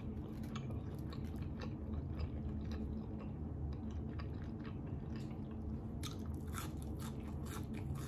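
A person chewing barbecue fried chicken and fries close to the microphone: many short, irregular mouth clicks and smacks over a steady low hum.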